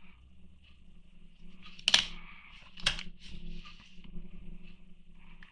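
Small hand tools being handled on a work surface: light clicks and rattles, with one sharp click about two seconds in and a smaller one a second later.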